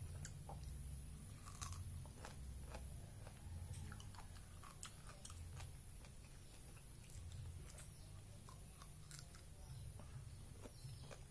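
Faint chewing and biting of fresh pineapple pieces: irregular small clicks and wet mouth sounds over a low steady hum.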